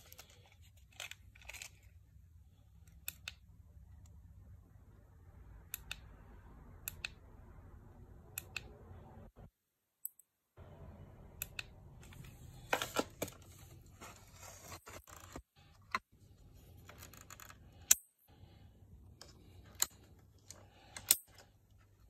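A plastic battery lantern and its remote control being handled: scattered sharp clicks and taps of plastic and button presses, with a few louder clicks in the second half.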